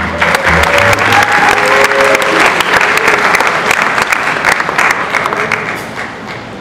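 Audience applauding, with a few voices over the clapping; the applause dies away near the end.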